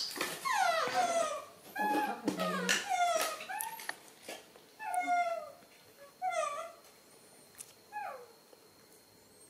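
Baby macaques giving high, falling whimpering coo calls, one after another: begging for milk. The calls come thick in the first few seconds, then fewer and fainter, with a few sharp clicks among them.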